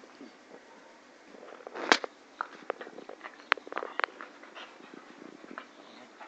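Two puppies play-biting each other: a scatter of sharp mouth clicks and smacks, the loudest about two seconds in, followed by a quick cluster over the next couple of seconds.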